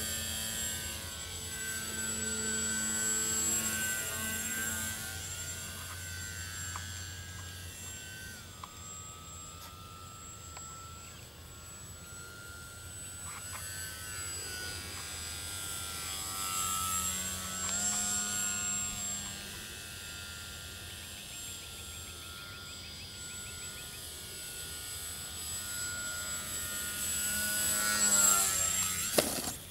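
The electric motor and propeller of a HobbyKing Yak 54 EPP foam profile RC plane in flight: a whine that rises and falls in pitch with the throttle. It is loudest near the end, as the plane passes close.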